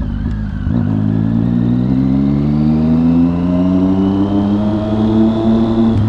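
Triumph Street Triple's three-cylinder engine accelerating, its pitch rising steadily from about a second in for some five seconds.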